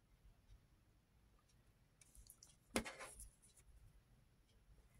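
Near silence: room tone, with one soft click a little under three seconds in and two fainter ticks just after it.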